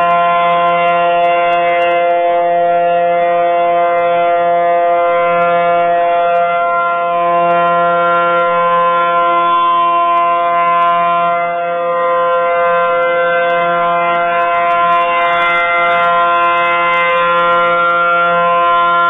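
ACA Howler civil-defense warning siren sounding a tornado-warning drill, running at full speed with a steady, unchanging pitch. Its loudness dips briefly a little past the middle.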